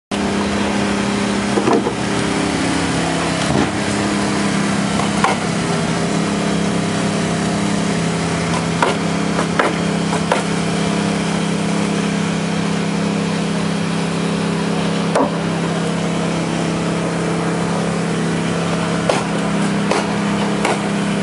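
Construction work on lumber: a steady machine drone runs throughout, with about ten sharp knocks of tools striking wood at irregular intervals.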